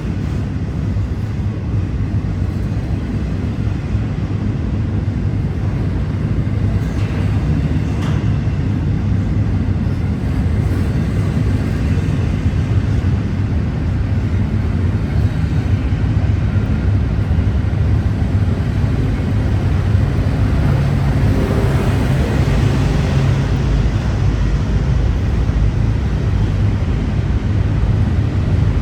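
Union Pacific freight train rolling past, a steady loud low rumble of wheels and cars on the rails, with a swell of higher rail noise about two-thirds of the way through.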